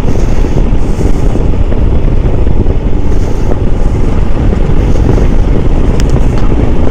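Steady, heavy wind buffeting on the microphone of a moving motorcycle, mixed with the bike's road and engine noise.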